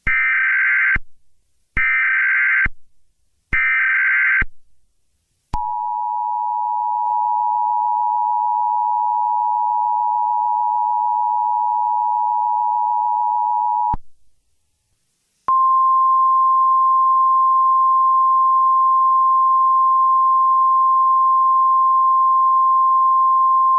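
Emergency Alert System tones. First come three short bursts of the SAME digital header, each a harsh buzzy chirp just under a second long. Then the two-tone EAS attention signal holds steady for about eight seconds, and after a short pause a single steady Weather Radio-style alert tone starts and keeps sounding.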